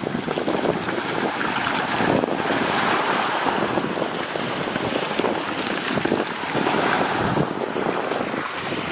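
Sea surf washing onto the shore: a continuous rush of water noise that swells and eases several times.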